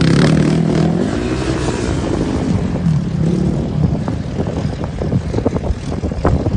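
An engine of a large vehicle running, its pitch rising and then falling over the first few seconds, with wind buffeting the microphone.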